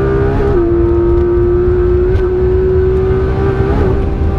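Porsche 991.2 GT3 RS's naturally aspirated flat-six held at high revs at full speed, heard from inside the cabin. It is a steady high engine note that dips slightly in pitch about half a second in and rises a little again near the end, over a low rumble of road and wind noise.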